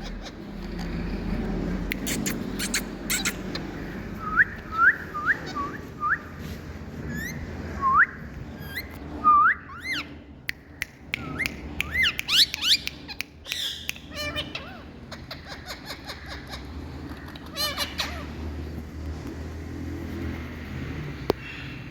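Indian ringneck parakeet calling: a run of short whistled notes that each hook upward, then quicker, higher rising calls, and a few harsher calls in the second half.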